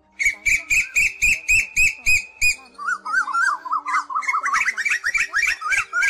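Asian koels calling: a run of about ten sharp, evenly spaced notes at about four a second, then, from about three seconds in, a faster bubbling series of notes that rise steeply toward the end.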